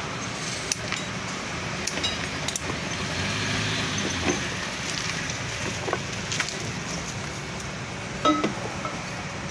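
Light clinks and taps of lead-acid battery plates and separators knocking together as they are stacked and squared by hand into a plate group, over a steady background rumble. A short louder sound comes near the end.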